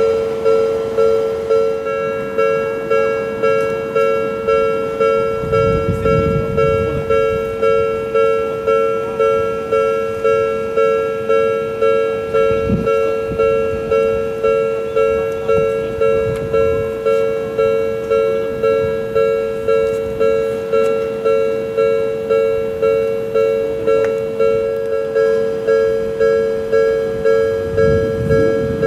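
Japanese level-crossing warning bell ringing steadily, about one and a half strokes a second, with a low train rumble rising under it now and then.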